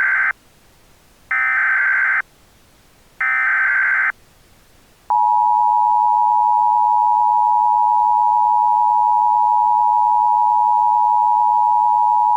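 Emergency Alert System alert opening: the end of one data-header burst, then two more harsh digital squawks about a second each with a second's gap between them. About five seconds in, the steady two-tone EAS attention signal starts and holds at an even level.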